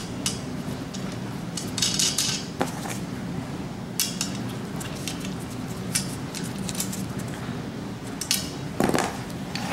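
Metal clicks and clinks of an Allen wrench turning a small set screw in a brushed-metal shower rod end bracket, at irregular intervals with a busier cluster about two seconds in, over a steady low hum.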